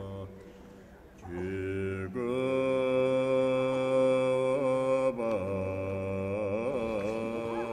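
Background music: a voice chanting in slow, long-held notes over a low steady drone, with a short dip about a second in and a wavering, ornamented line in the last few seconds.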